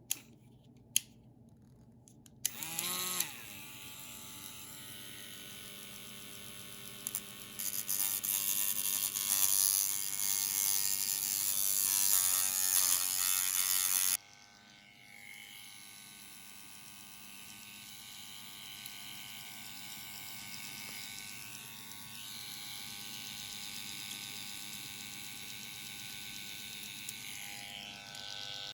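Small handheld rotary tool running: a few clicks, then it spins up about three seconds in. It runs louder and hissier from about eight seconds while grinding metal, stops suddenly near the middle, then runs again more steadily until just before the end.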